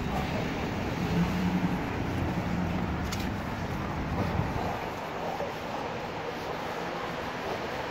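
City street traffic: a steady wash of road noise with a vehicle engine's low hum standing out for a few seconds, from about a second in.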